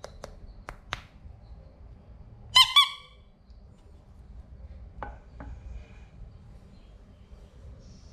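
Marbles clicking along a wooden HABA marble run. There is a quick series of clicks at the start, then two short, loud, high-pitched toots about two and a half seconds in, and two more clicks about five seconds in.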